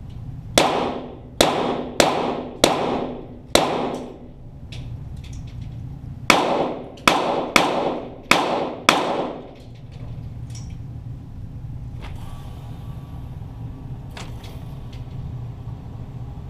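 Two strings of five .22 Walther GSP pistol shots, each crack followed by a ringing echo off the range walls. The first string comes in the first four seconds, the second about six seconds in, with uneven gaps of roughly half a second to a second. After that come a few faint knocks over a steady low hum.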